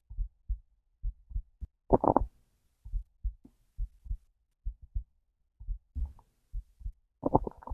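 Heartbeat heard through the body, a steady low double thump just over once a second, with a hungry stomach gurgling twice, about two seconds in and again near the end.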